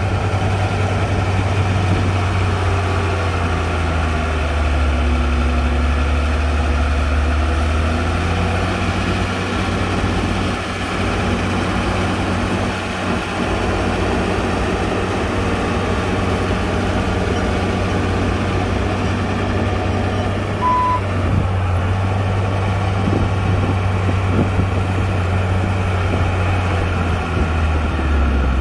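Heavy diesel earthmoving machine engine running steadily, its note shifting about eight seconds in, with a single short high beep about two-thirds of the way through.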